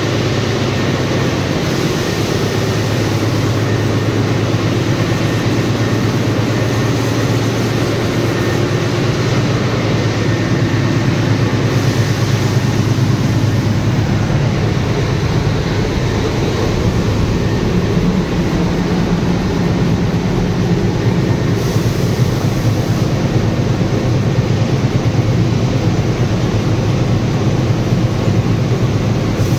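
Train running: a steady loud rumble with a low hum throughout.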